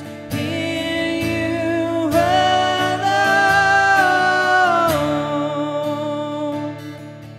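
Worship song: acoustic guitar strummed under singing voices holding long notes, growing softer toward the end.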